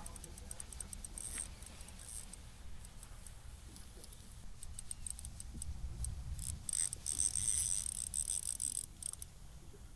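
Spinning reel ticking rapidly in runs as a fish is played on a bent rod, over a low steady rumble.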